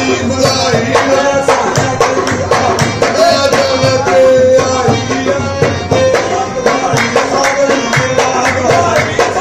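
Background music: steady drumming under a wavering melody line.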